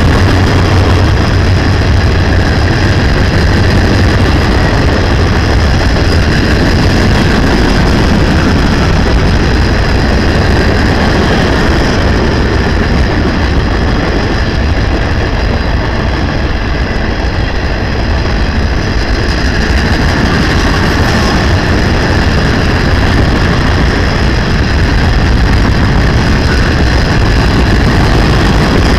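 A freight train's boxcars rolling past close by: a loud, steady rumble of steel wheels running on the rails, with no break.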